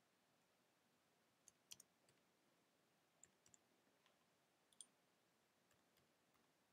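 Faint keystrokes on a computer keyboard: a few short clicks in small clusters over near-silent room tone.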